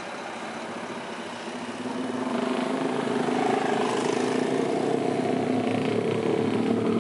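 Street traffic: a heavy diesel tractor unit without a trailer driving off. About two seconds in, a nearer engine grows louder and then holds a steady note.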